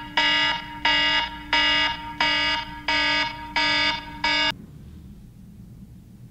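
Smartphone alarm ringing: a repeating electronic beep, about one and a half a second, that cuts off suddenly about four and a half seconds in as the alarm is stopped.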